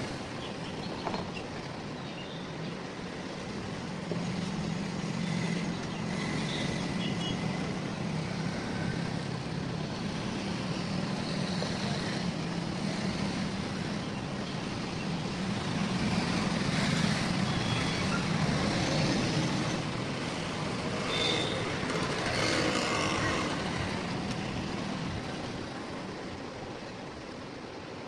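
Steady rumble of a running vehicle or road traffic, rising somewhat louder in the second half.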